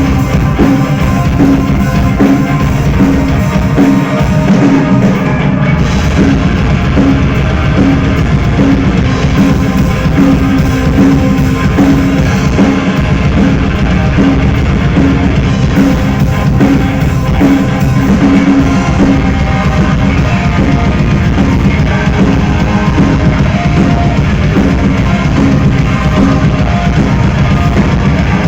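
Rock band playing loud and steady: drum kit and electric guitar.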